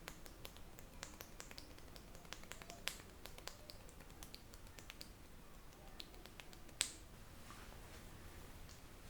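Irregular sharp clicks and snaps of a barber's fingers working an Indian head massage. Two snaps stand out, about three seconds in and just before seven seconds.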